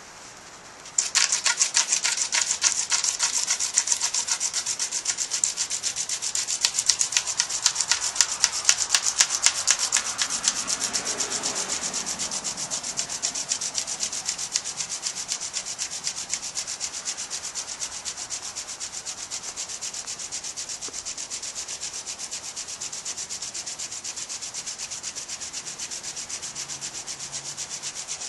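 Friction-fire hand drill: a semi-green Jerusalem artichoke spindle spun back and forth between the palms, its tip grinding into a balsam fir hearth board with a rapid, rhythmic hissing rub. It starts suddenly about a second in, is loudest in the middle stretch, then eases into a steadier, slightly quieter grind.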